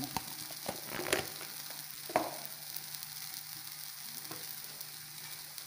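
A few light taps of a spoon against a frying pan in the first couple of seconds as crushed cashews go in on top of grated coconut and sugar, then a faint steady hiss from the pan.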